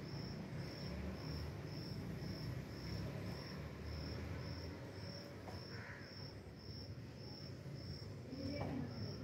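An insect chirping steadily, short high-pitched pulses about twice a second, over a low rumble.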